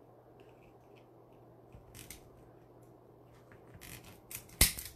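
Soft handling of deco mesh and wreath materials on a flower board, with a few short clicks and one sharp snap near the end.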